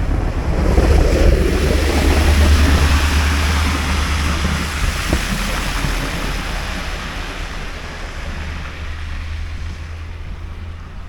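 Wind gusting across the microphone in a snowstorm: a loud low rumble with rushing hiss that swells over the first couple of seconds and slowly eases off.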